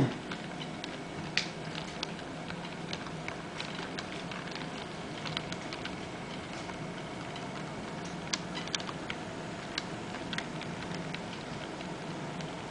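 HO scale model train rolling slowly past: small irregular clicks from the locomotive and covered hopper cars' wheels running over rail joints and turnouts, over a steady low hum.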